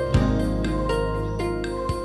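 Instrumental background music: a held bass note under chiming higher notes, with a new chord coming in just after the start.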